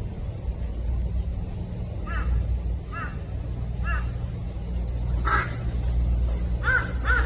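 A steady low rumble, with short bird calls about a second apart that come closer together and louder near the end.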